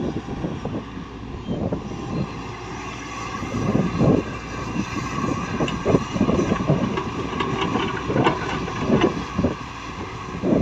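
Diesel engine of heavy earthmoving machinery running under load, with irregular clunks and scrapes of earth and rock being dug or loaded.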